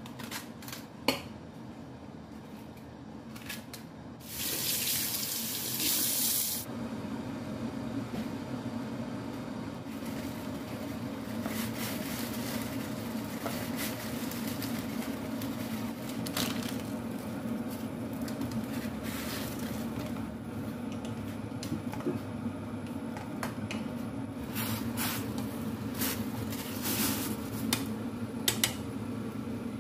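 Kitchen cooking sounds: a few sharp knife clicks, then a kitchen tap runs briefly about four seconds in. After it stops, a steady low rumble of water heating in a stainless saucepan on a gas burner carries on, with scattered clicks and knocks of handling. These grow thicker near the end, as wooden chopsticks stir noodles in the boiling water.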